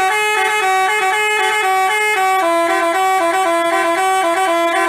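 Telolet 'basuri' multi-tone bus horn playing a quick melody. Its notes hop between a few pitches several times a second, and the tune drops to lower notes about halfway through.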